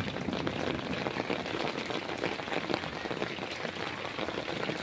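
Hail and rain falling on the ground and nearby surfaces: a steady, dense clatter of many small hits blending into a hiss.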